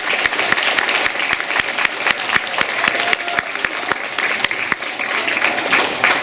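Audience applause: many people clapping steadily, a dense patter of claps.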